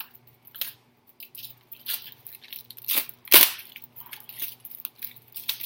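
Hands opening a plastic-wrapped CD package: a string of sharp clicks, snaps and crinkles, the loudest snap about three and a half seconds in.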